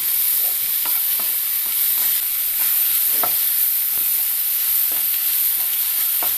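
Onions, tomatoes and spice powders sizzling gently over low heat in a non-stick pan. A spatula scrapes and taps against the pan in short strokes about every half second to a second as the mixture is stirred.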